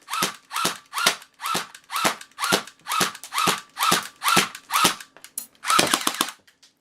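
Umarex HK MP7A1 electric airsoft gun firing single shots about twice a second, each a sharp mechanical clack of the gearbox cycling with a short whine, then a quick run of several shots near the end. This is the test-firing of the newly reassembled gearbox, checking that it fires one BB per shot instead of double-shooting.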